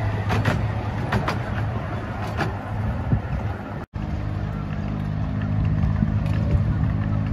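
Miniature railway train running past on its track, with scattered sharp clicks from the wheels and coaches over a steady low hum. After a break about four seconds in, a steadier low mechanical hum with a clear engine-like tone continues.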